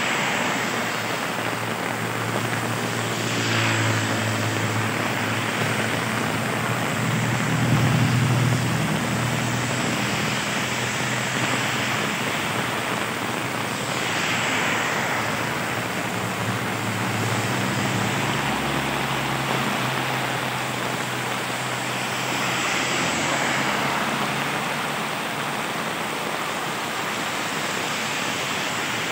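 Steady heavy rain falling on pavement and a wet road, with motor vehicles passing: an engine hum swells a few times, loudest about eight seconds in, and tyres swish through the water on the road now and then.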